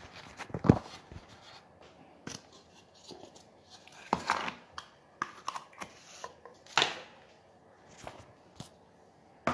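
Hand rubbing lard over a metal cake pan: scattered rubs and scrapes of fingers on the metal, with a few sharper knocks of the pan, the loudest just under a second in.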